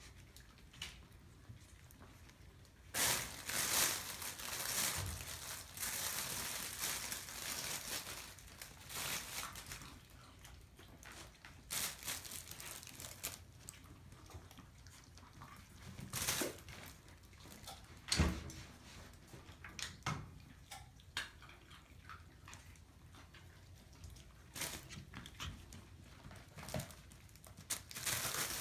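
Puppies scrambling in and around a fabric pop-up play tunnel: the fabric rustles and crinkles in irregular spells from about three seconds in, with a few sharp knocks.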